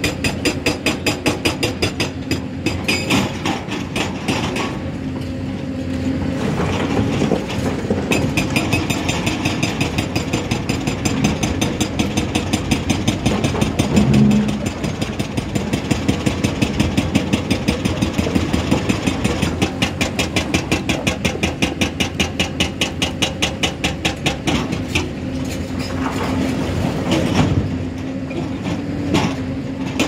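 Hyundai crawler excavator's diesel engine running with a fast, even beat while it digs and loads rock, its note swelling briefly under load about halfway through.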